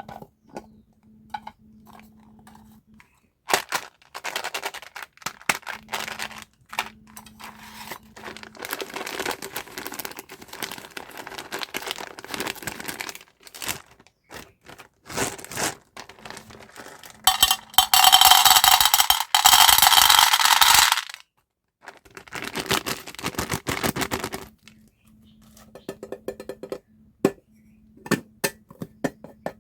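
Candy packaging being handled and opened by hand: plastic wrappers crinkling and tearing amid scattered small clicks and taps. A loud stretch of dense rustling runs for about three seconds past the middle.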